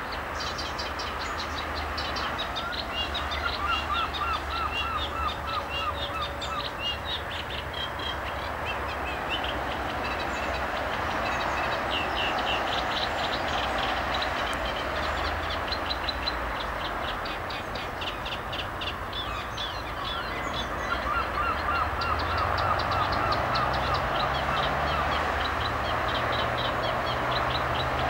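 Several birds singing across the river: many short high chirps and trills, with one bird twice repeating a quicker run of lower notes. Under them runs a steady rumble of road traffic, and a low engine drone swells in the last few seconds.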